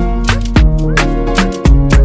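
Upbeat dance music with a strong, driving beat of sharp drum hits over a steady bass line and held chords.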